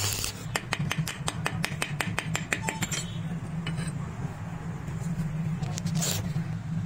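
Quick run of light metal-on-metal taps, about seven a second for a couple of seconds, on a steel wrench with a freshly welded nut, over a steady low hum. A short hiss opens the run, and another comes about six seconds in.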